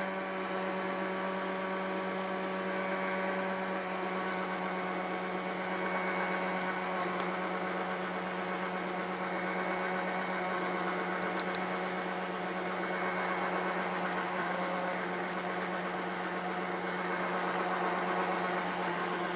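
Electric countertop blender motor running steadily at one speed, mixing a liquid cake batter as flour is spooned in.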